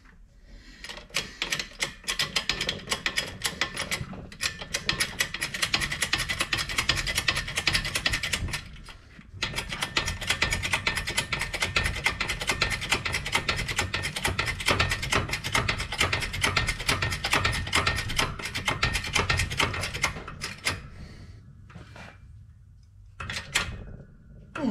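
Shop press working a carrier bearing onto a Ford 9-inch differential spool: a rapid, even mechanical clatter in two long runs, with a short break about nine seconds in, then dying away to a few clicks near the end.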